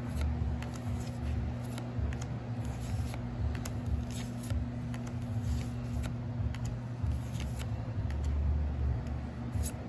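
Trading cards being slid and flipped through by hand, giving scattered light rustles and clicks over a steady low hum.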